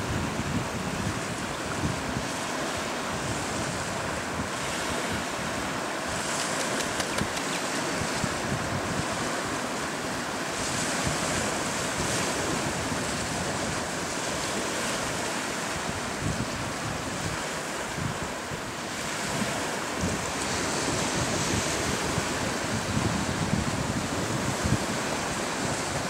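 Wind buffeting the microphone in gusts over the steady wash of small waves lapping on a pebbly estuary shore.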